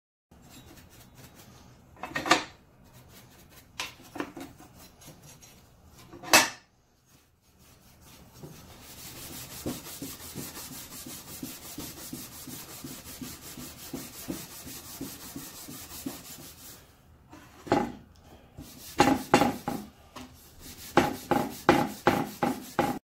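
Green abrasive scouring pad scrubbing the aluminum turntable of a Delta compound miter saw in steady, rapid strokes. A few sharp knocks come in the first several seconds, and the strokes grow louder and choppier near the end.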